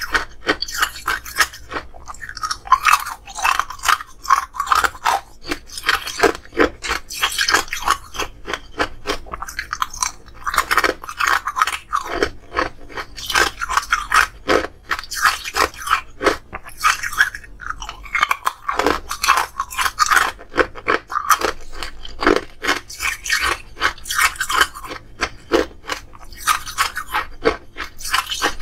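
Ice cubes being bitten and chewed close to the microphone: a continuous run of sharp, crisp crunches, several a second, with brief lulls between mouthfuls.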